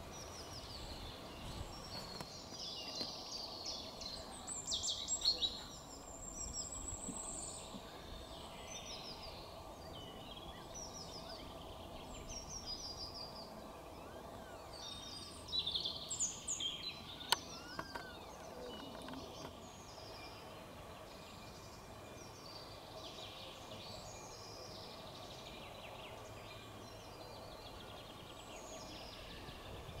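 Several woodland songbirds singing at once, with many short, varied phrases overlapping, busiest in the first two-thirds and thinning toward the end. A faint steady hum runs underneath, and there is a single sharp click about seventeen seconds in.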